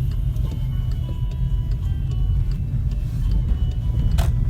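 Skoda Fabia vRS engine running with a heavy, uneven low rumble, the sign of a misfire. A sharp click or knock stands out about four seconds in.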